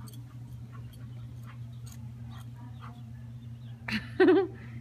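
A young dog gives one short, wavering yelp or whine about four seconds in, over a steady low hum.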